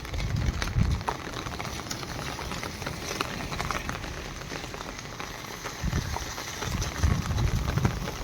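Outdoor nature ambience: a steady hiss dotted with many small ticks, like a patter, with bursts of low rumble about a second in and again over the last two seconds.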